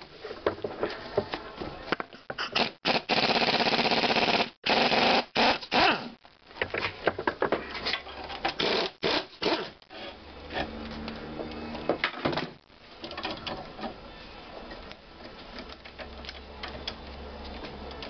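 Air ratchet running in bursts on the threaded rods of a coil spring compressor, backing them off to release the compressed strut spring once it is seated. There are several loud runs in the first half, then a steady low hum.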